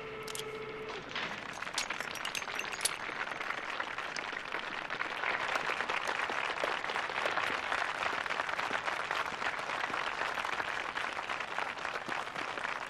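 Spectators clapping, the applause building over the first few seconds and then going on steadily. A short steady tone sounds in the first second.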